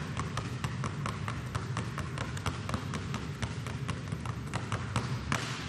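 Two basketballs dribbled low and fast on a hardwood gym floor, a steady run of sharp bounces several times a second.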